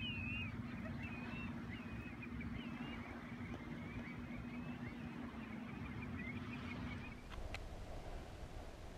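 A flock of terns and gulls calling, many short chirping calls over a steady low hum. About seven seconds in it cuts abruptly to the muffled hiss of a camera underwater.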